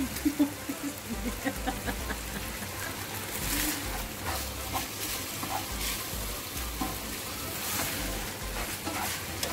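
Bacon sizzling as it fries in a pan, browning, with a few sharp clicks about half a second in.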